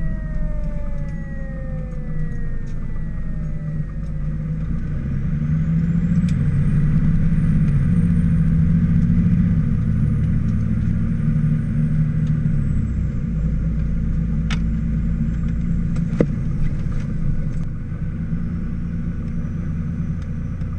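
Fire engine's diesel engine running, heard from inside the cab, with the siren winding down in falling pitch over the first few seconds. The engine rumble swells as the truck accelerates between about six and twelve seconds in, and a couple of sharp clicks come later.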